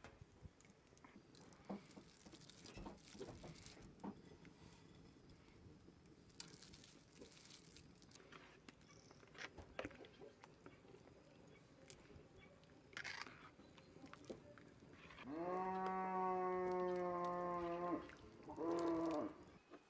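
A farm animal calling: one long, steady call of nearly three seconds, then a shorter one just after. Before it come faint scattered clinks and crackles.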